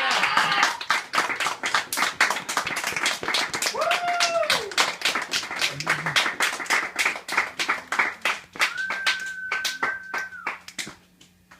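Small audience clapping after a set, with a rising-and-falling cheer about four seconds in and a held whistle near the end. The clapping thins out and stops shortly before the end.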